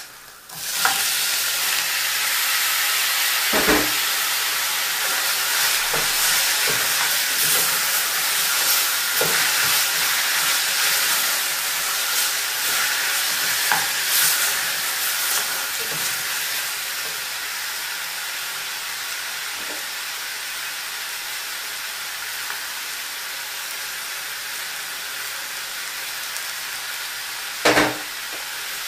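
Tomatoes going into hot oil with frying onions and peppers in a cooking pot (sufuria). A loud, steady sizzle starts about a second in and eases a little in the second half. A few knocks of the stirring spoon on the pot come through it, with a sharper knock near the end.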